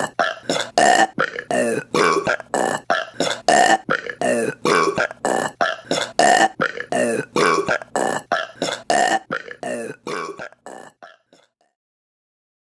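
A rapid run of short burps, about three a second, in an even, repeating rhythm that fades out about eleven seconds in.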